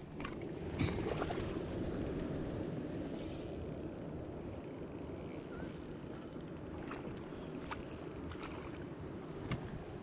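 Spinning reel being wound steadily as a hooked trout is reeled in against a bent rod, a continuous whirring with a few light clicks.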